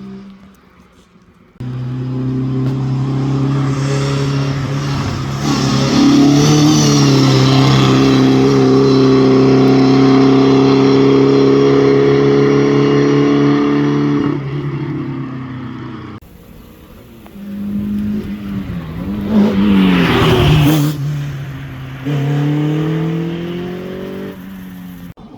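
Rally car engines over several quick cuts. First one engine is held at high, steady revs for about twelve seconds. Then a car passes close, its pitch dipping with a rush of noise. Near the end another engine climbs in revs.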